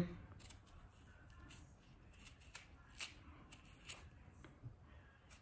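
Faint, irregular scraping and ticking of a small knife scooping the seeds and pith out of a halved bitter melon.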